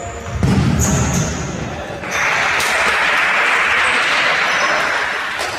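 Indoor futsal match noise: a ball thud and court sounds, then about two seconds in a loud crowd cheer in the hall that slowly fades.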